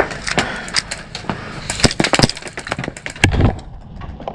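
Airsoft gunfire: irregular sharp cracks and clicks, clustered about two seconds in, with a heavier low thump a little after three seconds.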